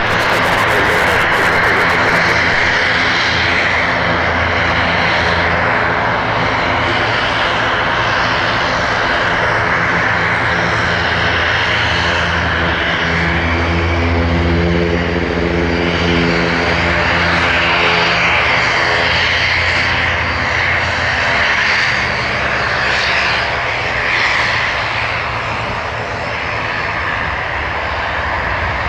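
CASA C-295M's twin Pratt & Whitney PW127G turboprops running as the aircraft taxis: a steady propeller drone whose low throb is strongest about halfway through, then eases a little near the end.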